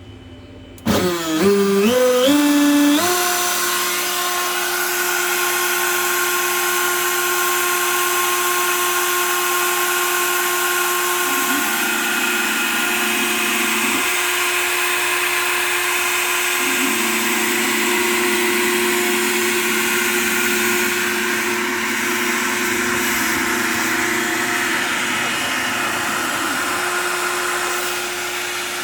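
Homemade CNC router's spindle starting up about a second in, its whine climbing in steps for about two seconds, then running steadily at high speed while milling wood, with a hiss of cutting under the whine and its pitch shifting a few times as the load changes.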